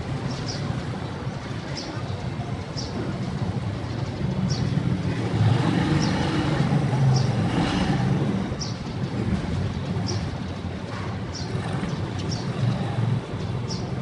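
Street ambience: steady traffic noise with a motor vehicle passing, loudest around the middle. Short high chirps recur every second or so.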